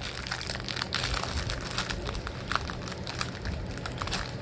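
Plastic snack wrapper crinkling and crackling as it is handled and opened, a dense run of small irregular crackles.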